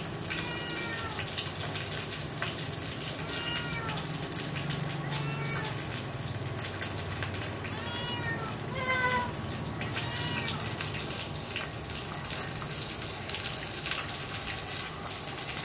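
A kitten meowing again and again: short, high calls that rise and fall, a second or two apart, over a steady low hum.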